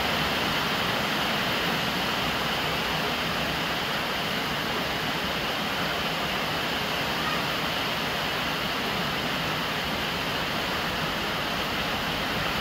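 Steady rain, with rainwater pouring from a plastic downpipe and splashing onto the lid of a large water jar: an even, constant rush of falling and splashing water.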